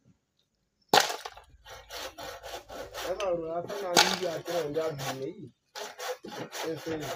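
Handsaw cutting a wooden pole in repeated rasping strokes, starting about a second in.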